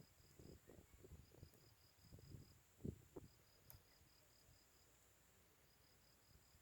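Faint insects chirping in short repeated trains over a steady high drone, with soft low pops in the first few seconds, typical of a small campfire settling.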